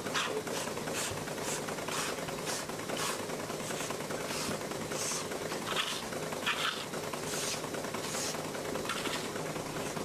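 Sheep milking machine running: short rhythmic hisses of air from the pulsators, roughly one to two a second, over a steady low hum.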